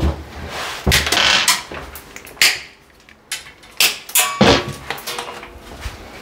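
Irregular clatter of small hard objects being rummaged through, a string of sharp knocks and clicks, as orange plastic wall plugs are fetched from among the tools.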